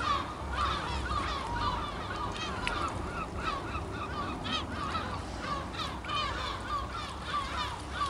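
A flock of gulls calling, many short, overlapping, downward-sliding cries repeating throughout, over a low steady rumble.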